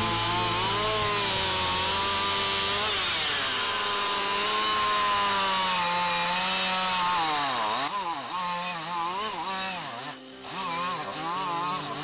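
Stihl two-stroke chainsaw cutting through a thick birch log, its engine pitch sagging under load and climbing again. About eight seconds in, the pitch starts wavering quickly up and down, and the sound dips briefly near the end. The chain is old and cut poorly, by the owner's account.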